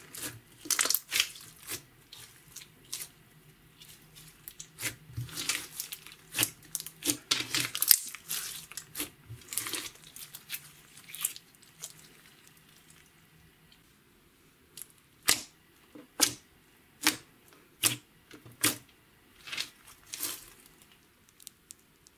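Silver glitter slime being squeezed and kneaded by hand: sticky squelches, crackles and clicking pops, close together for the first twelve seconds or so, then single pops about once a second near the end as the slime is stretched.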